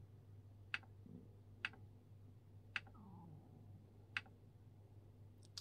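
Nerve conduction stimulator ticking once with each electrical pulse: faint, sharp single clicks about a second apart, five in all, as a series of repeated supramaximal stimuli is given to the median nerve to record F-waves.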